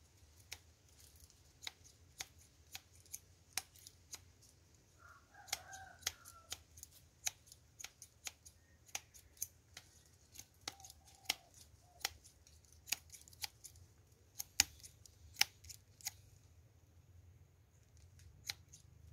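A run of sharp, irregular clicks, roughly two a second, loudest a little before the end, over a faint steady hiss that stops about three seconds before the end.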